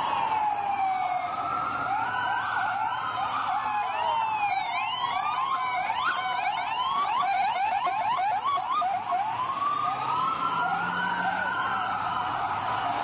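Several emergency-vehicle sirens sounding at once: slow rising-and-falling wails, joined about four seconds in by a fast yelp that stops about five seconds later.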